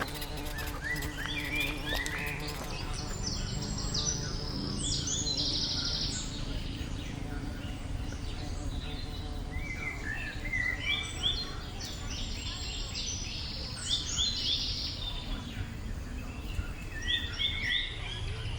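Wild birds singing in bursts of short, rapidly repeated chirping notes, in several bouts, over a steady low background noise.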